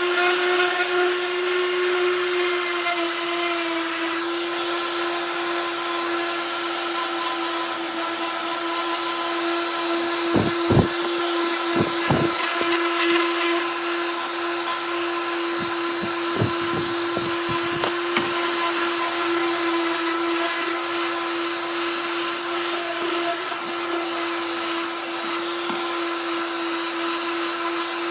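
DeWalt DWE6423 5-inch random orbital sander running, a steady motor whine with sanding hiss, with a few short knocks in the middle.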